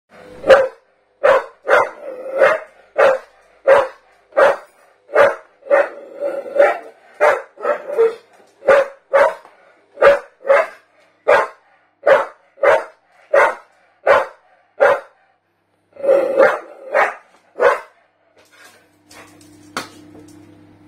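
Staffordshire bull terrier barking steadily, about three barks every two seconds, with one short break. The barking stops near the end, followed by a light click.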